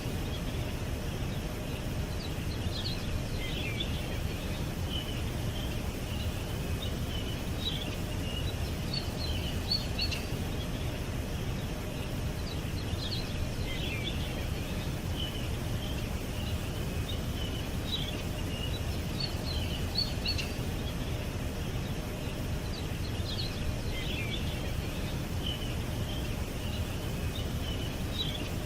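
Small birds chirping and tweeting in short, scattered high notes, some sweeping downward, over a steady low background rumble.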